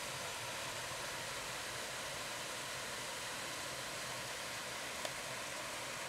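Steady rushing hiss of a small rock waterfall spilling into a pond, with one brief click about five seconds in.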